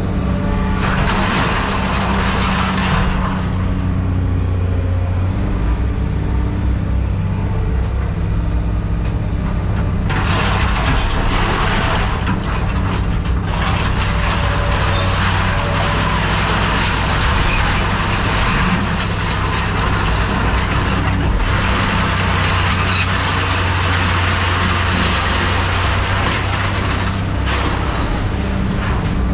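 Heavy machine's engine running steadily, with long stretches of harsh hissing and rattling noise over it, typical of scrap metal being worked.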